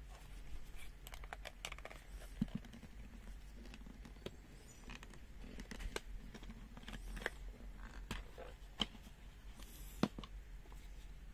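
Rubber protective holster being pulled and peeled off a plastic multimeter by hand: scattered rubbing and small clicks and knocks, with a sharp knock about two and a half seconds in and another near the end.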